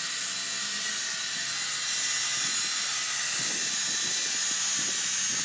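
Diamond-blade concrete cutting saw running through a reinforced concrete wall: a steady, loud, high-pitched hissing whine with several held tones, at an even level throughout.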